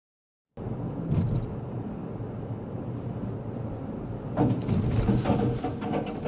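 Steady road and engine noise of a car, heard from a dashcam inside the cabin, starting abruptly just after the start, with a louder stretch beginning about four and a half seconds in.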